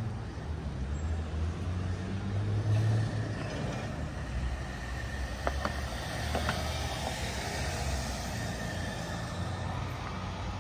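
An SUV driving slowly past, its engine a steady low hum over the noise of its tyres on the pavement.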